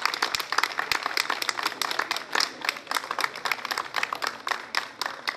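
Crowd applauding: many dense, uneven hand claps, easing slightly near the end.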